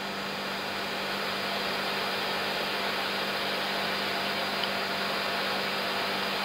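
Steady cockpit noise of an Airbus A330-300 in its initial climb after takeoff: the even rush of air over the flight deck and the engines at climb thrust, heard inside the cockpit with a steady low hum under it, growing slightly louder in the first couple of seconds.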